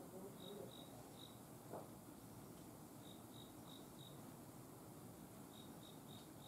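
Near silence with a faint insect chirping: short, high chirps about three a second, in runs of three or four with pauses between.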